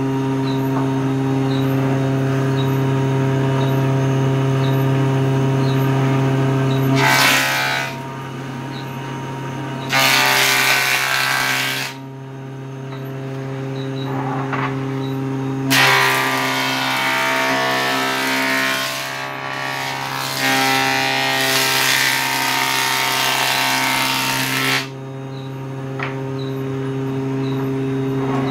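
Electric surface planer (jointer) running with a steady motor hum. A wooden plank is fed over the cutterhead in passes, and loud cutting noise comes briefly about seven seconds in, again for about two seconds a little later, and then through one long pass of about nine seconds.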